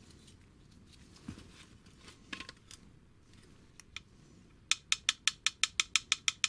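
Small metal scooter parts handled by gloved hands: a few light knocks and taps, then a quick, even run of sharp metallic clicks, about nine a second, lasting under two seconds near the end.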